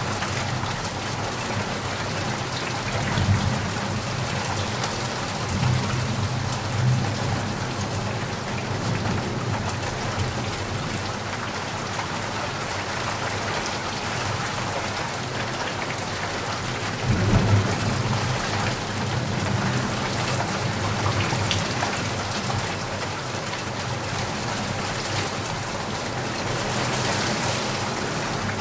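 Steady rain falling, with low rumbles of thunder a few seconds in and a louder rumble just past halfway.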